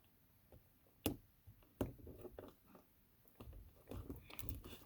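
Sticky, stretchy slime being handled: faint wet clicks and pops, two sharper clicks about one and two seconds in, and soft squelching near the end.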